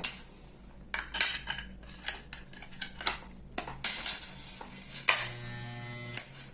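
Clicks and knocks of a plastic hair clipper housing being handled and closed up, then a Wahl Super Taper's electromagnetic motor buzzing steadily for about a second near the end, its repaired on/off switch giving an even run.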